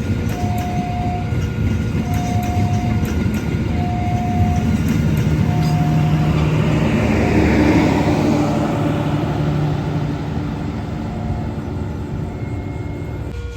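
A train passing, its rumble building to a peak about eight seconds in and then fading. Over it, a short tone beeps about every one and a half to two seconds during the first six seconds.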